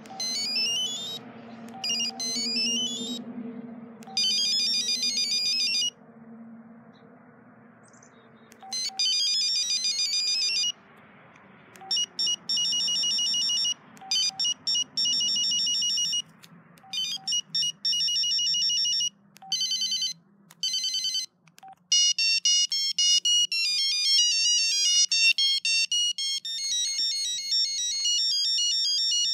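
Samsung SCH-N370 cell phone's built-in ringtones playing through its small speaker, one short electronic melody after another, each cut off after a few seconds as the next one starts. Near the end one tune plays on without a break.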